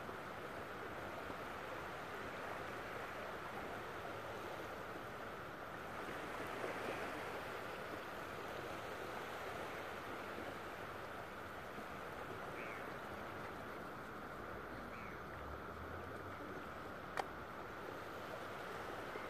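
Steady hiss of distant surf at the water's edge, with two faint short chirps partway through and a single sharp click near the end.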